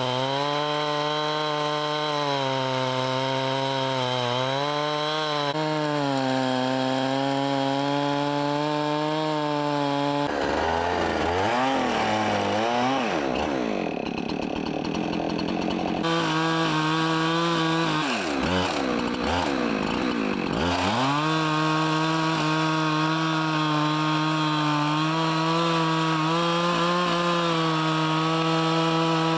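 Husqvarna two-stroke chainsaw running at high speed while cutting into a large log, its pitch sagging and recovering as the chain bites. Midway the engine speed drops and rises again a couple of times before it settles back to a steady cutting note.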